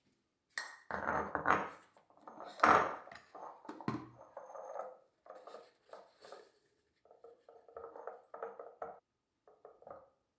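Kitchen dishes and utensils clattering and scraping in an irregular run of knocks and rubbing strokes, with the loudest knock about a third of the way in.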